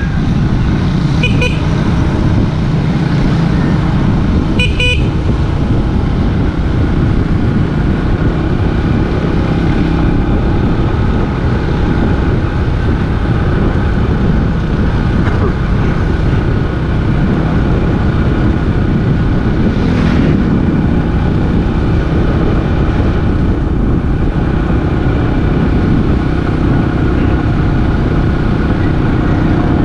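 Steady engine and wind noise of a motor vehicle travelling along a road, with two short horn toots about one and five seconds in.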